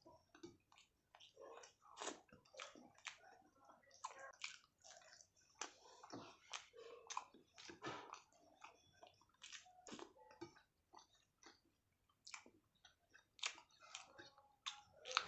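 Close-up eating sounds: wet chewing and lip smacks of rice with egg curry and mashed aubergine, in irregular short smacks throughout.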